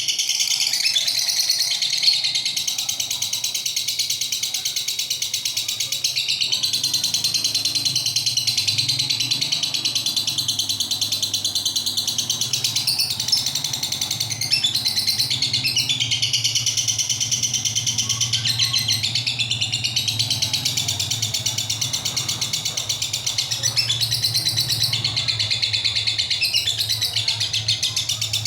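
Lovebird in 'ngekek' song: one long, nearly unbroken run of rapid, high-pitched chattering trills, with only brief dips.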